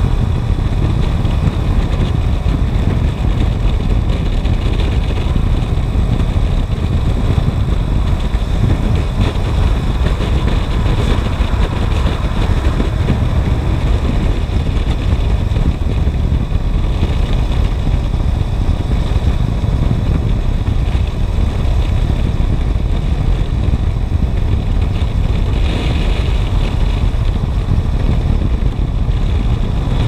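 Steady wind rush over the microphone mixed with the running single-cylinder engine of a Yamaha Ténéré 250 motorcycle cruising at road speed, heard from on the bike itself.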